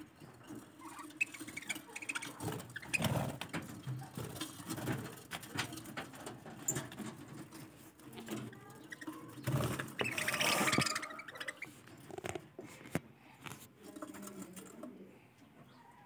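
Budgerigars chattering with scattered short chirps and warbles, and a louder scratchy rustle about ten seconds in.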